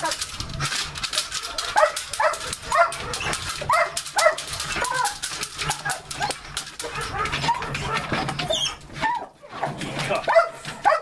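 Police dog barking repeatedly, about two barks a second, at a helper threatening it with a stick during protection training.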